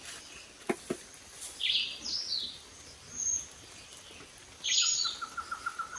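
Several birds calling over and over in the jungle, short squeaky calls every second or two. Two sharp knocks come a little under a second in, and a quick run of short even notes starts near the end.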